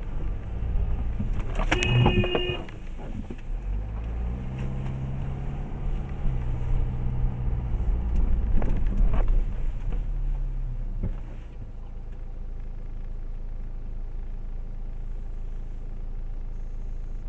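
A car's engine and road noise heard from inside the cabin while creeping through traffic. The pitch rises and falls as the car speeds up and slows, then settles to a quieter, steady idle about eleven seconds in. A short, honk-like tone sounds about two seconds in.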